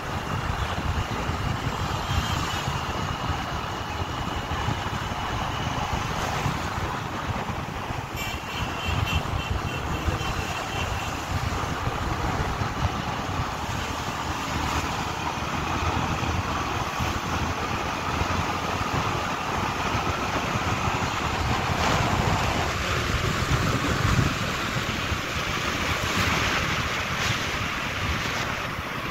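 Wind rushing over the microphone of a moving motorcycle, over the steady drone of its engine and tyres on the road.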